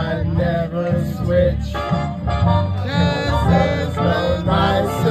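A man singing into a handheld microphone over amplified country-style backing music with guitar and a steady beat.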